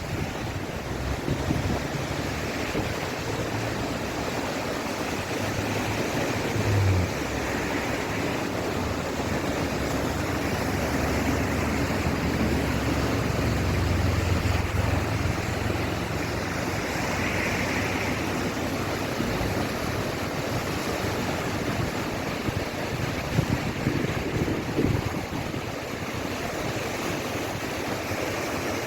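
Floodwater rushing steadily in a swollen river, with wind buffeting the microphone in an uneven low rumble.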